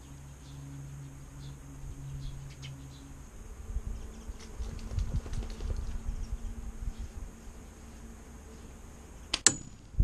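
A soft rubber slingshot pellet striking at a brown-eared bulbul on a metal rack: one sharp, loud crack near the end with a brief high ring after it. Before it, low rumbling with scattered light clicks.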